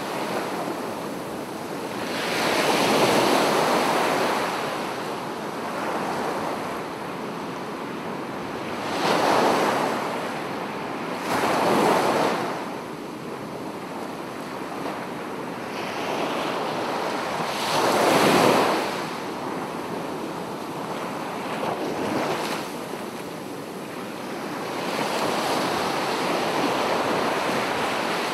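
Sea waves breaking and washing up a sandy beach: a steady wash of surf that swells up five times at uneven intervals as waves come in and fades back between them.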